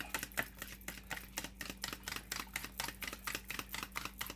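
Eggs being beaten in a bowl, the utensil tapping against the bowl in quick, even clicks, about five or six a second.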